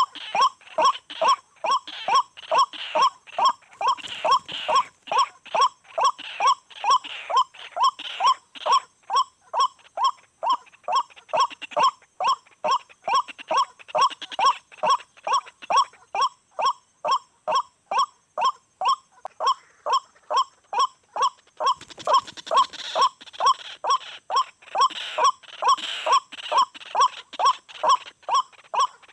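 White-breasted waterhen (ruak-ruak) calls: one loud pitched note repeated in an even rhythm about twice a second, without a break.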